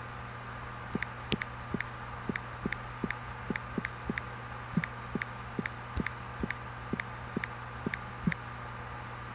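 Steady machine hum, with a run of light, sharp clicks about two to three a second that starts about a second in and stops shortly before the end.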